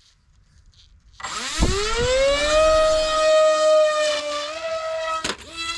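Small FPV plane's brushless electric motor and propeller spinning up with a rising whine, then holding a steady high whine for about three seconds. Near the end there is a sharp knock and the whine stops: the heavily loaded plane has failed to fly and come down.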